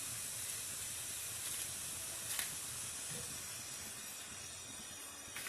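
Thin beef steak frying in a pan of butter and melted Roquefort sauce: a steady sizzle that slowly fades, with a faint click about two and a half seconds in.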